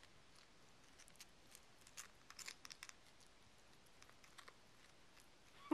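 Faint, scattered clicking and crunching of a dog gnawing on a bone, with a quick cluster of clicks about two seconds in.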